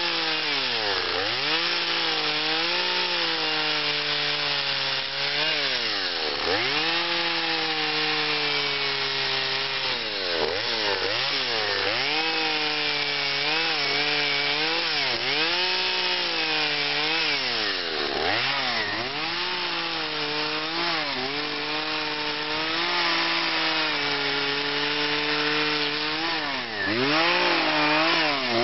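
Two-stroke gas carving chainsaw running as it cuts into a cottonwood log, the throttle blipped again and again: the engine pitch holds at high revs, then drops sharply and climbs back many times.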